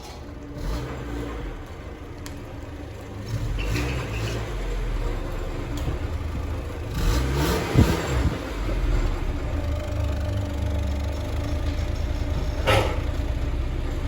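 1996 Honda Civic engine running at low speed while the car is reversed. Its pitch rises and falls once about halfway through, and there is a short sharp knock near the end.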